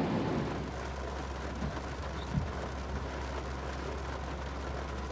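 Heavy rain falling on the truck's roof and windshield, heard from inside the cab, a steady hiss over a low hum. A soft knock about two and a half seconds in.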